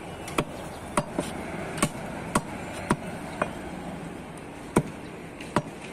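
Large butcher's knife chopping beef on a round wooden chopping block: sharp chops roughly every half second, with a pause of about a second and a half before the last two.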